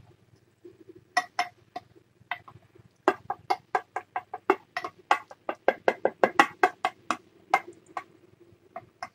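Cat chewing food, a fast run of short, dry clicks. It starts sparse, quickens to about five a second a few seconds in, then thins out near the end.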